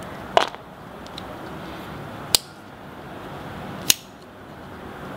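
Three sharp metallic clicks, spaced about one and a half to two seconds apart: the back lock of a Spyderco Dragonfly 2 folding knife snapping into place as the blade is worked open and shut. The blade is being tested for play and lock rock after its pivot screw was backed off slightly.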